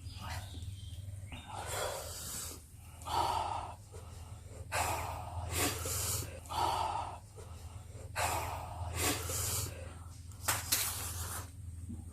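People breathing hard through the mouth against the burn of extra-spicy noodles: a run of about nine sharp, noisy puffs and gasps of air, one every second or so, over a steady low hum.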